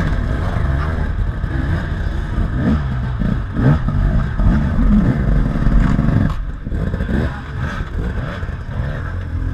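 Enduro dirt bike engine revving up and down under changing throttle, easing off briefly about six and a half seconds in before picking up again.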